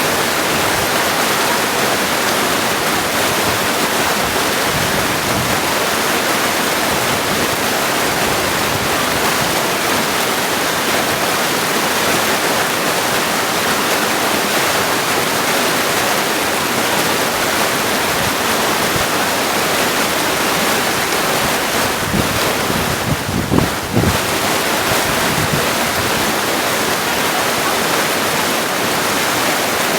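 Mountain creek rushing steadily over stones, an even, unbroken water noise. A brief low bump is heard a little over three quarters of the way through.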